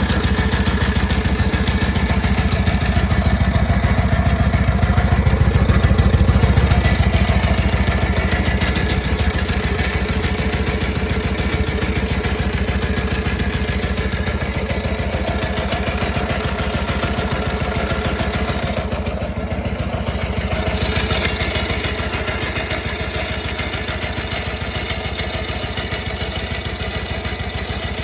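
Harley-Davidson WLA 45 flathead V-twin engine idling steadily with an even firing beat. It carries an idle noise that the owner finds strange and cannot place.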